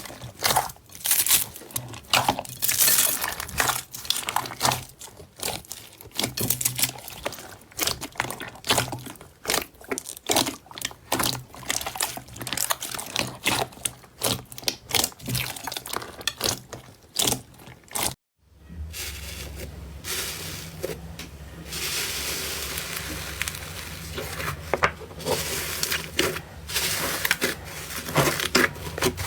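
Slime being squeezed and poked by hand: a dense run of crackles and pops. After a brief break about two-thirds through, another slime clip follows, with softer crackling over a steady low hum.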